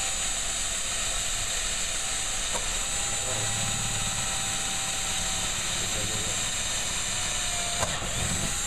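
Power drill running steadily with a high motor whine, boring a starter hole through an LED light panel. The pitch dips briefly near the end and picks up again.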